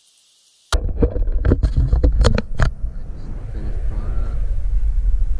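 Handling noise on a handheld action camera: the low rumble of wind or handling on the microphone starts suddenly about a second in, with several sharp knocks and clunks over the next two seconds, then settles into a steadier rumble.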